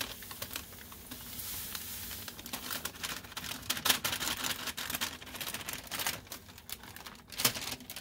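Paper crinkling as dry citrus powder is poured off it through a stainless steel wide-mouth funnel into a glass jar. First comes a soft hiss of powder sliding, then from about two seconds in a run of quick light clicks and crinkles as the paper is tapped and shaken empty.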